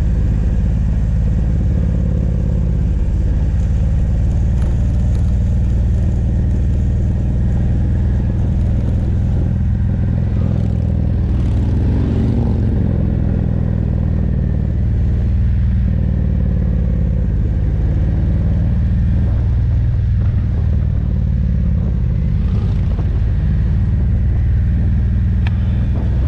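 Harley-Davidson Road Glide's V-twin engine running while riding down a mountain road, its pitch shifting up and down a few times as the throttle changes, with wind rushing over the microphone.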